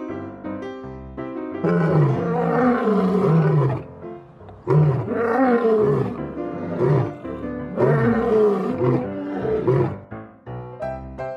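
Lion roaring three times, each roar falling in pitch, over light background music.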